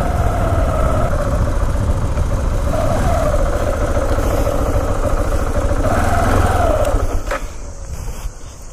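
2016 KTM 690 Enduro R's single-cylinder engine running under way, its revs rising and falling twice. The engine gets quieter near the end as the bike slows.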